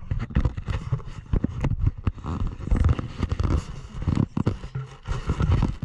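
Handling noise on an action camera's microphone as it is moved and repositioned: irregular scrapes, knocks and rustling over a fluctuating low rumble.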